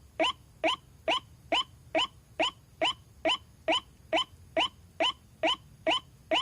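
White-breasted waterhen calling a fast, even series of short rising "wak" notes, a little over two a second.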